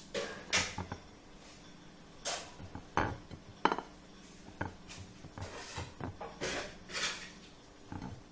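Hands rolling stuffed grape leaves on a plate: irregular light taps and clicks against the dish, with short rustles of the leaves.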